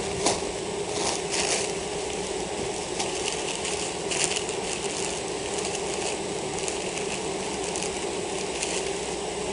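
A mass of honeybees shaken out onto a sheet in front of a hive, buzzing in a steady hum, with a few brief rustles and crackles over it.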